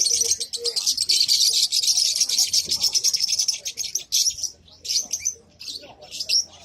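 Many caged small birds chirping together in a dense, high-pitched chatter that thins out to scattered separate chirps about four seconds in.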